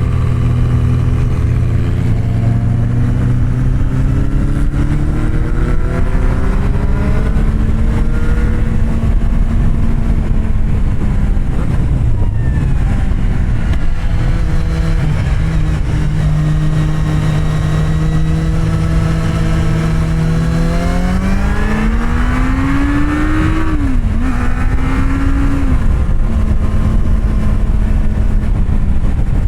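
Kawasaki Z750R's inline-four engine with an SC-Project exhaust, heard onboard while riding: the revs hold steady and climb slowly in long pulls, with a brief drop about twelve seconds in. Near the end it revs up harder and shifts up twice, the pitch falling sharply at each change, over a steady rush of wind.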